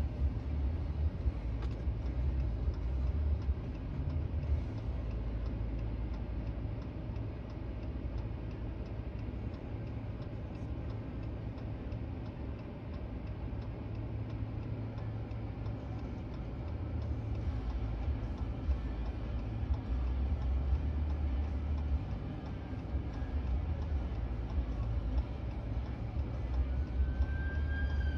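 Strong wind buffeting the microphone, a steady low rumble with a noisy rush above it, under many small, sharp ticks. A short falling whistle near the end.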